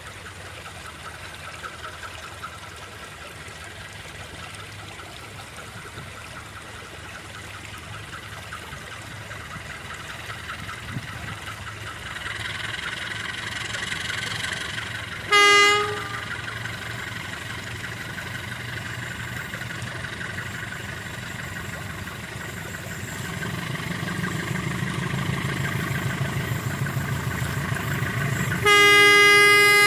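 CC 201 diesel-electric locomotive running, its engine rising in loudness over the last several seconds. It sounds its horn in one short blast about halfway through and again in a louder, longer blast near the end.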